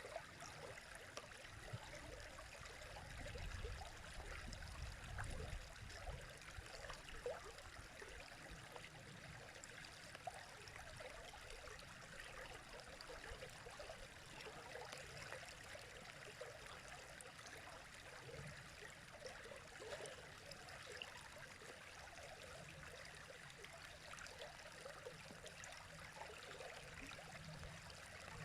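River water running over stones, a steady faint babble and trickle. A low rumble swells briefly a few seconds in.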